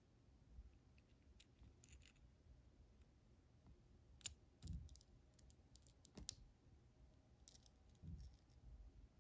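Faint clicks and light scraping of small metal lock parts being handled during reassembly of a pin-tumbler padlock cylinder. There are a few sharper clicks about four to six seconds in, and soft handling bumps.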